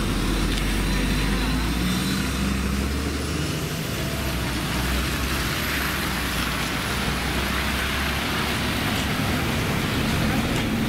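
City buses idling at a stop with a steady low engine rumble over street traffic noise; the rumble eases off about eight seconds in.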